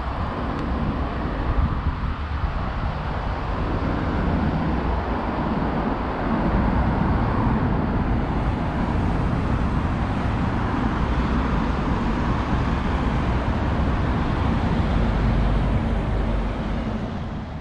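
Road traffic: a motor vehicle's engine and tyre noise close by, getting louder about six seconds in, then fading out near the end.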